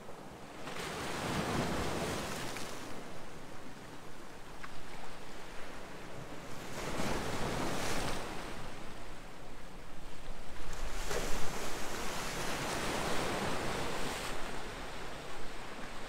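Small sea waves breaking and washing against a rock breakwater. The surf swells three times, about a second in, around seven seconds in, and longest from about eleven to fourteen seconds, with a softer wash of water between the surges.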